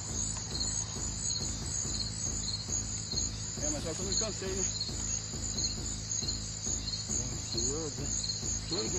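Insects chirping in a steady, evenly repeating rhythm of high chirps over a constant low hum.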